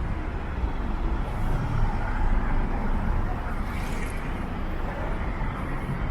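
Road traffic on a busy city street: motor vehicles passing with a steady low rumble.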